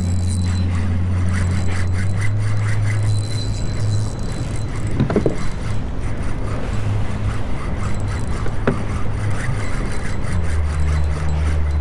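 Spinning reel cranked hard against a hooked tarpon, its gears and line giving a steady rasping whir as line is won back under heavy load. Under it runs a steady low hum that shifts about ten seconds in, with a short knock about five seconds in and another near nine seconds.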